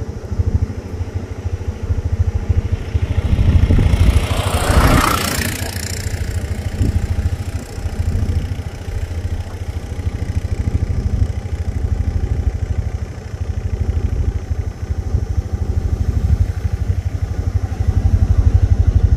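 Auto-rickshaw's small single-cylinder engine running with a steady low putter, heard from on board the three-wheeler. A rush of noise swells and fades about four to six seconds in.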